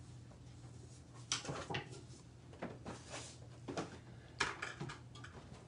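Scattered light knocks and clatter of bowls and utensils being moved about on a kitchen counter, over a low steady hum.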